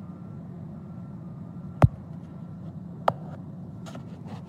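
Steady low hum of an idling vehicle engine, with two sharp clicks about two and three seconds in, the first the louder.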